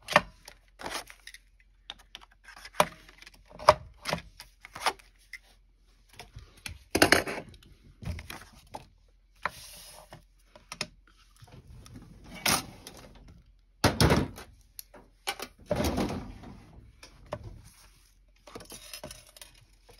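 Heavy card and paper being handled at a desk: scattered taps and knocks, with a few louder rustling, crunching handling sounds partway through.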